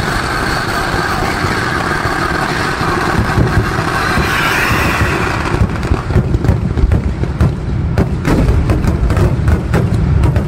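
A chain of firecrackers going off at ground level in a dense, continuous crackle. About six seconds in it thins out to scattered separate bangs.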